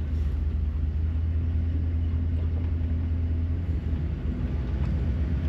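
Motorhome engine idling, a steady low hum heard from inside the rig.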